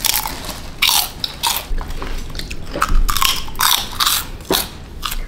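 Close-up biting and chewing of crispy fried chicken: a string of irregular, sharp crunches.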